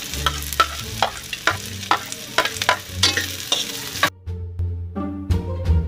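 Garlic, onions and freshly added carrot sticks sizzling in oil in a thin aluminium wok. A metal spoon clinks and scrapes against the pan as it stirs. About four seconds in, the frying cuts off suddenly and background music takes over.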